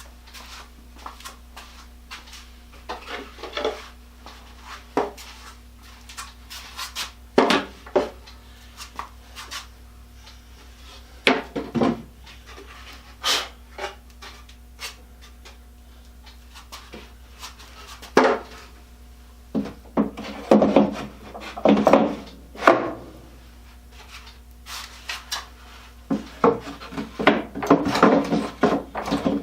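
Wooden tool box parts being handled: scattered knocks of wood on wood and short bouts of wood sliding and rubbing, as the box's wooden tills are set in place. The busiest bouts come about two-thirds of the way through and near the end.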